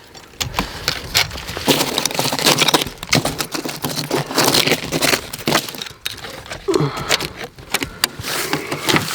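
Irregular clicks and rattles of a steel tape measure and wooden board being handled while measuring.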